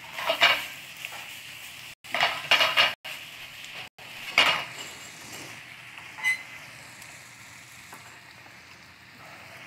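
Crumbled mycoprotein sizzling in a nonstick frying pan over a gas flame, a soy-based glaze just added. The pan is stirred and tossed in a few louder bursts during the first half, then goes on sizzling steadily, with a light clink about six seconds in.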